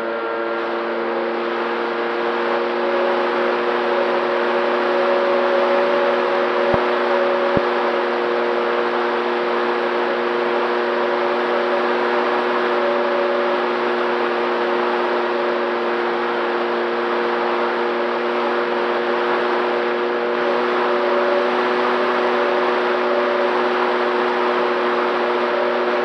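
Electric motor and propeller of an FX-79 flying-wing RC plane running at steady throttle: a steady whine of several held tones over a rush of noise, with two brief clicks about seven seconds in.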